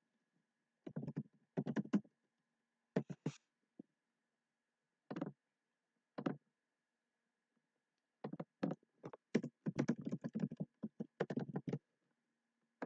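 Typing on a computer keyboard in short bursts of keystrokes with pauses between them, and a quicker, denser run of keys in the last few seconds.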